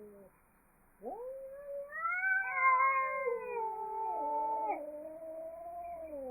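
Angry cat yowling: after about a second of near quiet, one long, wavering caterwaul rises sharply and carries on for about five seconds.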